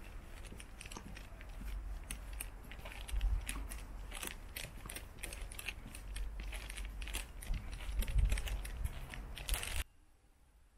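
Many small, irregular clicks and taps over a low rumble, stopping abruptly near the end.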